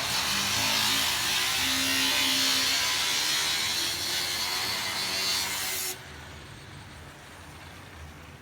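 Power tool cutting into steel, a loud steady hiss that stops abruptly about six seconds in.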